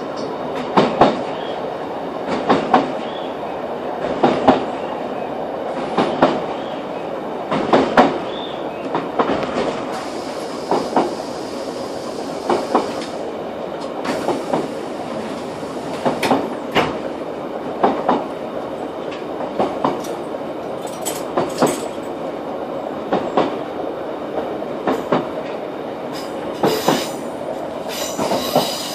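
Class 156 diesel multiple unit heard from inside the carriage while running: the wheels click over rail joints in clusters about every one and a half to two seconds over a steady running rumble. A brighter high-pitched sound joins near the end.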